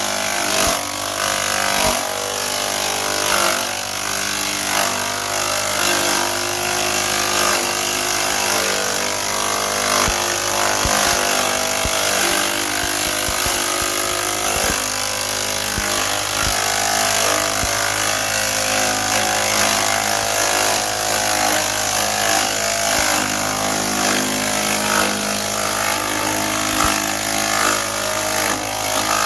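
Ohashi GS401D chipper-shredder running steadily under load, its engine holding a constant hum while the machine grinds the material fed into it, with scattered sharp cracks throughout.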